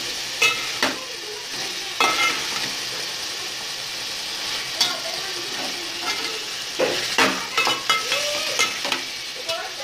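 Chicken pieces sizzling in hot oil in a metal pot as a slotted metal spatula stirs them, with sharp scrapes and clinks of the spatula against the pot, coming thickest near the end.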